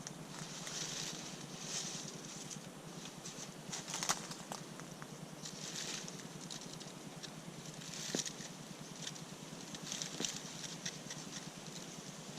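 Faint intermittent rustling and crackling in dry leaf litter, coming in short scratchy bursts about every second or two.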